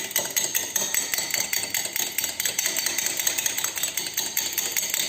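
A raw egg being beaten by hand, the utensil clicking quickly and steadily against the side of the container.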